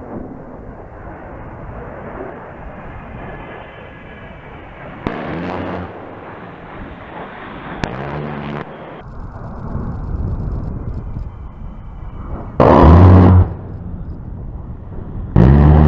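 A-10 Thunderbolt II's GAU-8 Avenger 30 mm rotary cannon firing four short bursts, each a deep buzzing brrrt under a second long. The third burst is the loudest and the second is the weakest. Between the bursts the A-10's jet engines run.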